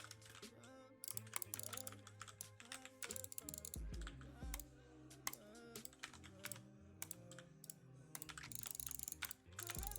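Typing on an E-element Z88 75% mechanical keyboard: a run of irregular key clicks.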